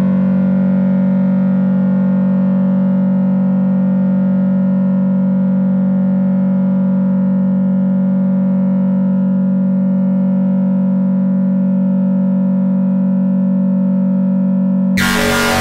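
A synthesizer drone: one steady low tone with overtones held without change. About fifteen seconds in, a sudden burst of harsh, distorted noise cuts in.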